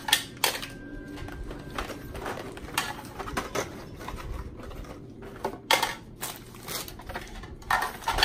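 Small plastic hair bobbles and clips clicking and clattering into clear plastic bins, in irregular knocks, with plastic packaging crinkling as more packs are opened.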